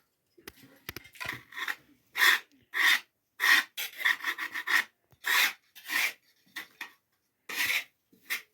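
Repeated rasping scrapes, irregular strokes about once or twice a second.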